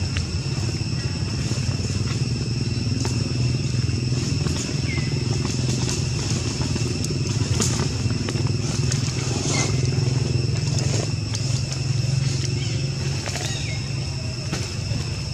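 Steady outdoor background noise: a constant low rumble with a high, even drone over it, a few faint short chirps and light scattered clicks. Nothing from the monkeys stands out.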